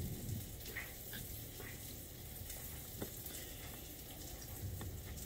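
Floured squirrel pieces frying in butter in a cast iron skillet: a steady sizzle with a few small clicks through it.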